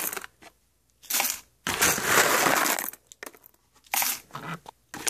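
Whole coffee beans rattling as spoonfuls are scooped and poured into the coffee maker's grinder basket: a short burst, a longer pour of about a second, then a few quicker, fainter ones.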